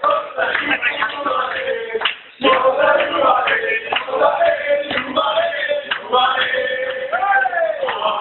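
A crowd of men singing a chant together, breaking off briefly a little over two seconds in.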